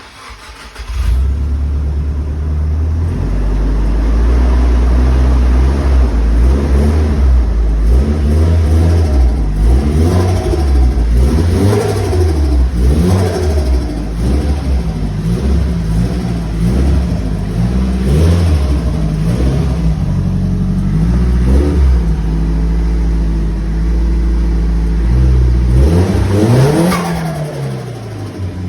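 Nissan Silvia S15's turbocharged SR20DET four-cylinder starting about a second in, then running and being revved over and over, the engine note rising and falling, with turbo flutter as the throttle snaps shut.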